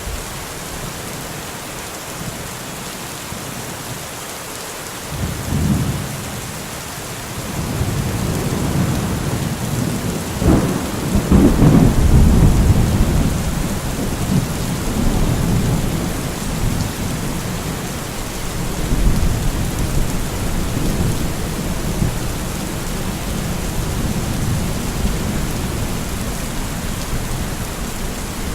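Steady rain falling with a thunderstorm: a first low rumble about six seconds in, then a sharp crack near ten seconds that swells into a long, loud rolling rumble and dies away slowly while the rain hiss continues.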